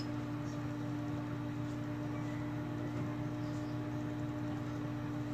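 Incubator circulation fan running with a steady low hum.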